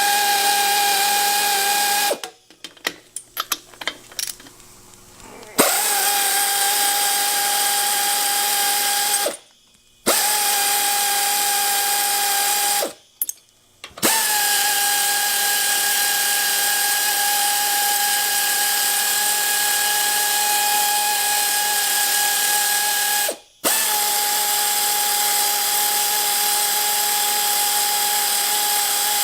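High-speed machine-shop spindle running with a steady high whine over a hiss, working on an aluminium Sportster cylinder head. It stops and starts again about four times, briefly settling in pitch each time it comes back up to speed.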